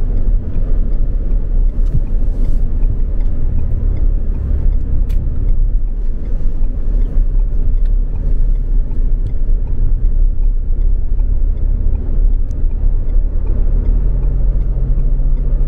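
A car driving along, with a steady low rumble of engine and road noise.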